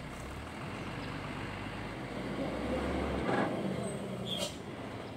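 Hino 500 dump truck's diesel engine running low and steady as the loaded truck creeps along at crawling speed, with a couple of brief noises in the second half.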